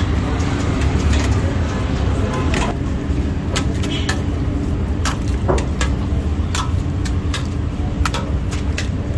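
Busy street noise: a steady low rumble of traffic, with frequent sharp clicks and knocks over it.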